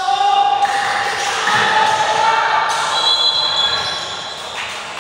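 Basketball game sound in a large echoing gym: a ball bouncing on the hardwood court, players' voices and shouts, and a few brief high squeaks about three seconds in.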